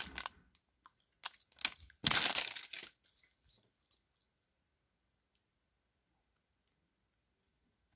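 Foil wrapper of a 2017 Topps Update baseball card pack crinkling as it is pulled off the cards, in a few short bursts, the longest about two seconds in.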